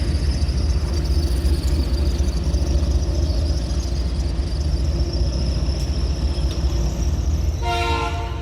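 Freight train with EMD SD40-2 diesel locomotives running with a steady deep rumble and a steady high squeal above it. Near the end a locomotive air horn sounds one short blast.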